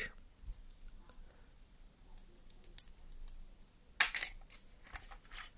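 Light clicks and taps of the small metal and plastic parts of a dismantled car tyre pump being handled, with a louder clatter of several clicks about four seconds in.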